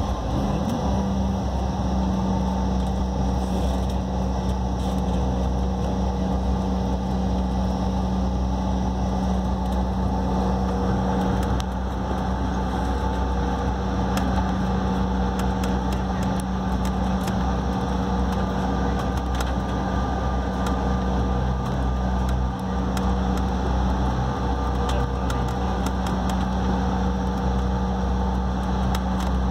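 Jet airliner engines running steadily at taxi power, heard inside the passenger cabin as a low rumble with a few steady whining tones. Scattered small clicks come in during the second half.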